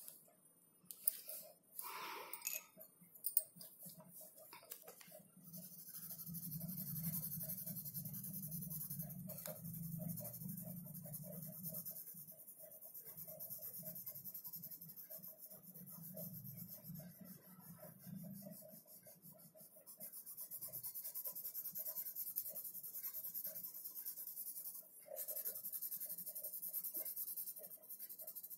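Graphite pencil shading on paper: a steady scratchy hiss of quick back-and-forth strokes, easing off briefly now and then, with a low hum underneath for much of it. A few sharp knocks come in the first seconds.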